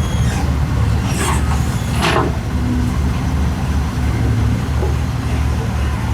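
Excavator diesel engine running steadily at a low rumble, with two brief noisy sounds about one and two seconds in.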